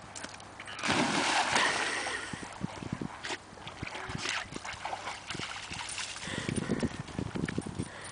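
A dog jumps into the creek with a loud splash about a second in, then sloshes and paddles through the water with smaller splashes.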